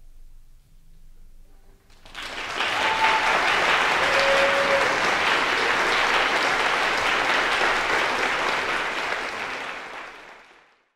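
Audience applause after an orchestral performance: a short hush, then clapping breaks out about two seconds in, holds steady, and fades away near the end.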